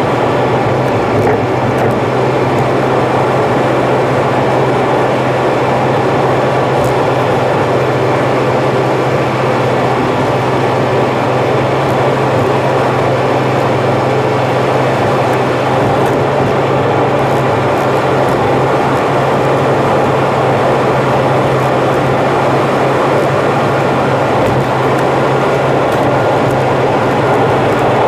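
Steady road and engine noise of a car driving on an expressway, heard from inside, with a constant low drone under an even rush.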